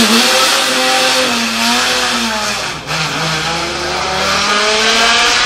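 Classic Ferrari 250's three-litre V12 accelerating hard, its note rising and then falling back as it goes through the gears, with a brief dip in sound about halfway.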